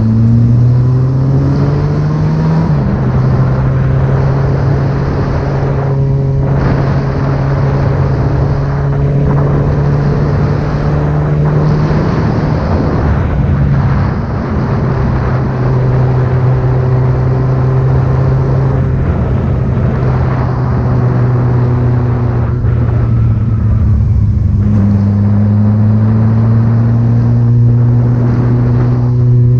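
Yamaha XJ6 inline-four motorcycle running with a loud exhaust on the move: the revs climb and then drop at a gear change a couple of seconds in, hold steady for most of the time, and rise a little again near the end.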